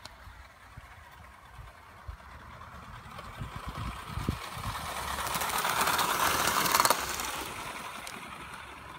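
Model A4 locomotive 60024 'Kingfisher' running past on a garden railway track, its running noise rattling. It grows louder as it approaches, is loudest about six to seven seconds in, then fades as it moves away.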